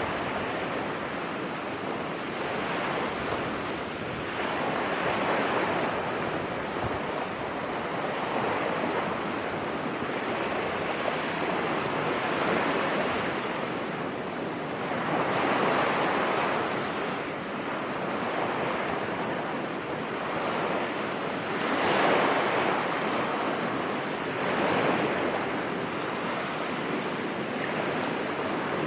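Sea waves breaking and washing up on a beach: a continuous rush of surf that swells louder every few seconds as each wave comes in.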